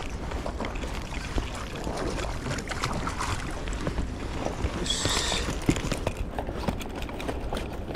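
Hooked fish splashing and thrashing at the water's surface as it is scooped into a landing net, with knocks from the net and rod being handled.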